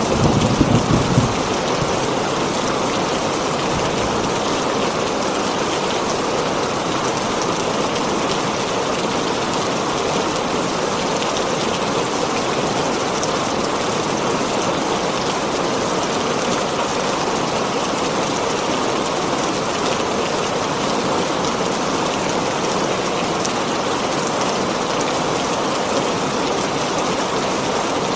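Heavy rain drumming steadily on a tin roof. The tail of a low thunder rumble dies away in the first second or so.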